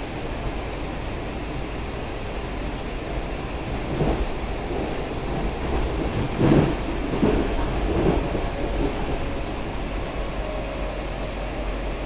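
Steady rumble of a WMATA 7000-series metro car running along the track, heard from inside the car, with a few louder thumps between about four and eight seconds in. A faint steady whine comes in near the end.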